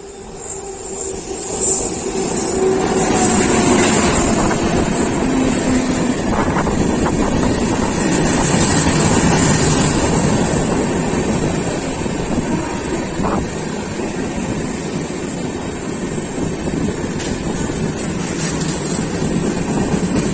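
Express passenger train pulling into the station, a steady loud rumble of the coaches running on the rails that swells about two seconds in and holds.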